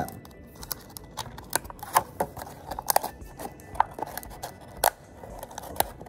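A thin plastic water bottle handled and its screw cap twisted on, giving irregular sharp clicks and crinkles of the plastic, over faint background music.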